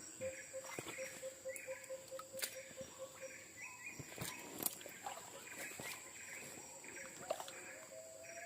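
Faint forest ambience: a steady high-pitched insect drone, birds calling with short repeated notes, and one low note repeated about five times a second for the first few seconds, with scattered light clicks.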